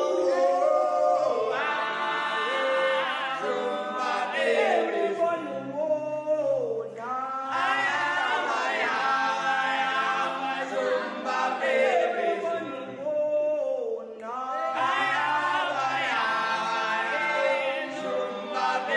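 Background music: a song with several voices singing in harmony over a sustained low accompaniment, the phrases pausing briefly twice.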